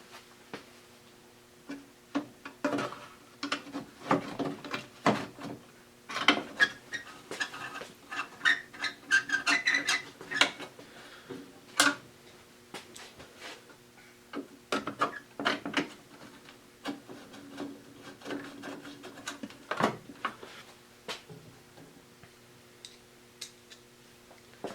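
Plastic headlight bezel being worked onto a Jeep XJ's headlight surround by hand: irregular clicks, knocks and scraping as it is pushed and shifted to seat. The sounds are busiest in the first half, with a sharp knock about 12 seconds in, and thin out towards the end.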